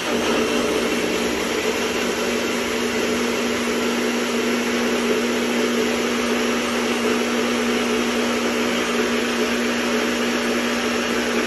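NutriBullet personal blender motor running steadily at full speed, blending a protein shake of milk, banana, frozen spinach and yogurt, a loud even whir with a constant hum.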